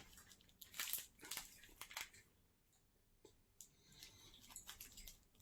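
Faint crinkling and clicking of a candy-bar wrapper being handled, in short bursts with a quiet pause in the middle.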